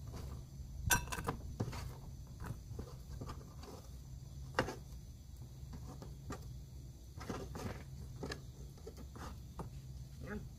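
Irregular taps and clicks of food preparation on a cutting board beside a metal bowl, as vegetable pieces are handled, over a low steady rumble.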